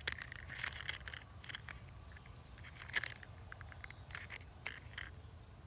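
Faint clicks and scrapes of a small plastic toy fire truck being handled and turned over in the fingers, one click about three seconds in louder than the rest, over a low steady rumble.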